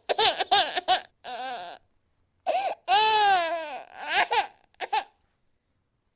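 Crying sound effect in a high young child's voice: a string of short gasping sobs, then one long wail that falls in pitch, then a few more sobs, ending about five seconds in.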